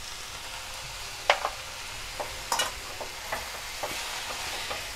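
Shredded vegetables sizzling in hot oil in a stainless-steel kadhai while being tossed with a silicone spatula: a steady hiss with a few scrapes and taps of the spatula against the pan.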